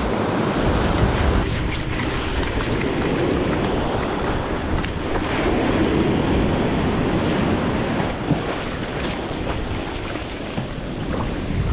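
Ocean surf breaking and washing over the shore in steady rushing noise, with wind buffeting the microphone.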